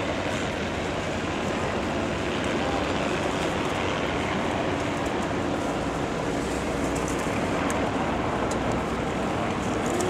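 Steady drone of distant motors under an even rushing noise, with no break or sudden event.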